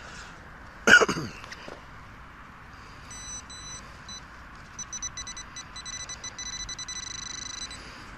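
A handheld metal-detecting pinpointer beeps with a high electronic tone from about three seconds in. Its pulses come faster and merge into a near-continuous buzz as it closes on the target in the dug hole. About a second in there is a short, loud burst that falls in pitch.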